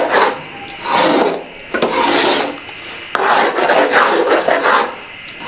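Metal ladle scraping around the bottom of an aluminium pot as chickpeas in a thick masala are stirred and fried, in repeated strokes of about a second with short gaps between.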